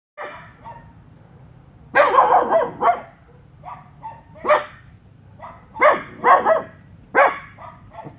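Dogs barking: a quick run of barks about two seconds in, then single loud barks every second or so, with fainter barks between them.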